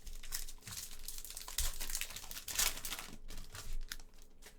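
Wrapper of a football trading-card pack crinkling and tearing as it is handled and opened, an irregular crackling rustle that is busiest in the middle.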